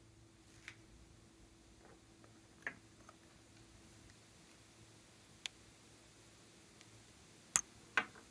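Small plastic makeup containers being handled: a few scattered light clicks and taps, with two sharper clicks close together near the end, over a faint steady hum.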